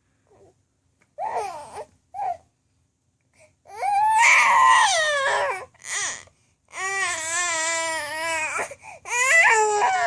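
Five-month-old baby vocalizing: a few short high-pitched sounds, then three long, loud, high wails or squeals, each about two seconds long with short breaks between.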